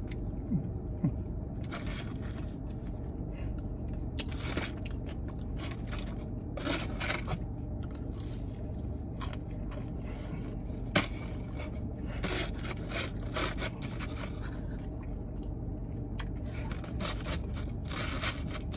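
Mouth-close eating: chewing and crunching fried food such as a hushpuppy, and a plastic fork scraping food from a takeout box, in scattered short bursts with one sharp click about 11 seconds in. A steady low hum lies underneath.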